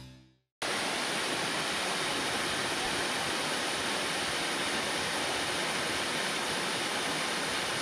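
Background music fading out, then after a brief silence a small waterfall's steady rush of water splashing into a rocky pool.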